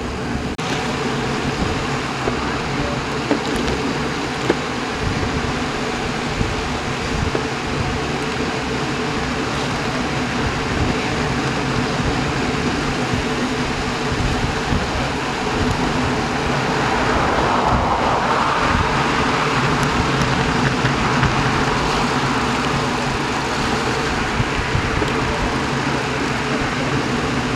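Steady rushing road noise from riding in a group of road bikes at about 25–30 km/h: wind and tyres on asphalt. It swells louder for a few seconds in the middle, around 17 to 22 seconds in.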